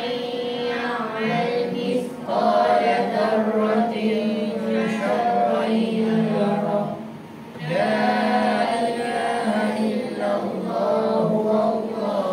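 A group of voices chanting Quranic recitation in unison, in long melodic phrases with short breaths about two seconds in and again about seven and a half seconds in.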